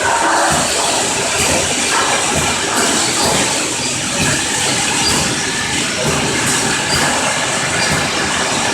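A four-nozzle piston-pump filling and capping machine running: a steady mechanical noise dense with small clicks and knocks.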